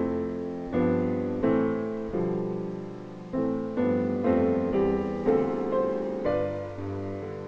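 Slow solo piano music: notes and chords struck about every half second to a second, each ringing and fading before the next.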